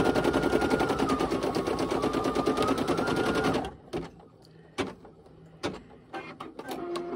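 Brother PE800 embroidery machine stitching with rapid, even needle strokes and a motor whine, then stopping suddenly about halfway through as the design finishes. A few sharp clicks follow, and a short tone sounds near the end.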